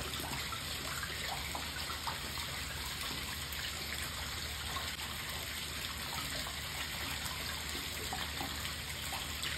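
Steady trickling and splashing of water running into a koi pond, with small scattered drips.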